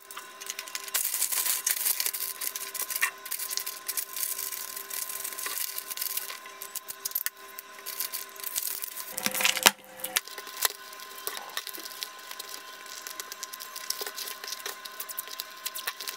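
Brown kraft wrapping paper rustling and crinkling as small gift boxes are wrapped, with scattered clicks and taps of handling.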